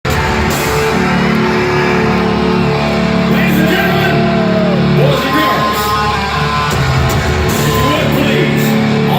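Rock band playing live in an arena, loud and continuous with heavy electric guitar.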